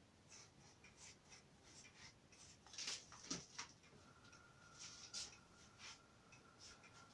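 Palms rolling soft curd-cheese dough into logs on a floured wooden cutting board: faint brushing and rubbing, with a couple of light knocks about three seconds in.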